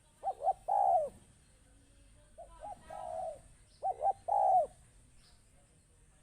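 Spotted dove cooing: three phrases, each two short coos followed by a longer rolling coo, the middle one quieter.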